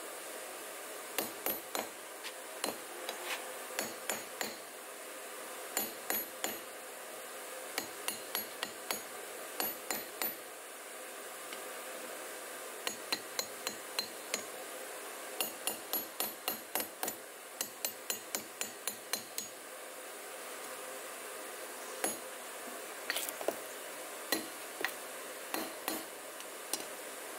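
Claw hammer striking a thin steel rod on a small steel block: runs of sharp metallic blows, up to about three a second, with short pauses between runs, as the rod is beaten into shape for a pair of tongs.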